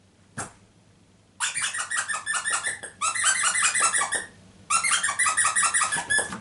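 A rubber squeaker in a pet toy or squeaky mat being pressed over and over, giving three long runs of quick, rapidly repeated squeaks. A single short click sounds about half a second in.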